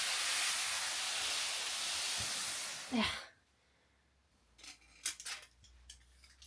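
A steady hiss for about three seconds, ending with a short falling sweep, followed by a few faint clicks and taps.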